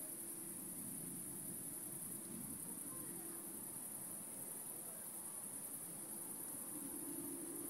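Crickets chirping in a continuous, high-pitched night chorus.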